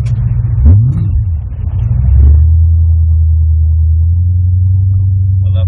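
Holden Calais V8 engine running under way with a steady low drone. About a second in it revs briefly up and back down.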